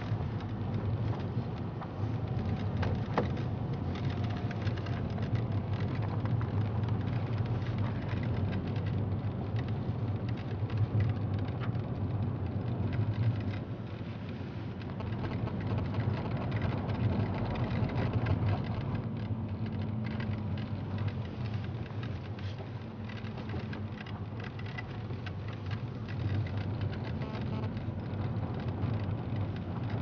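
Car driving on a rough mountain road, heard from inside the cabin: a steady low rumble of engine and tyres with a dense crackle of road noise from the tyres on the broken surface.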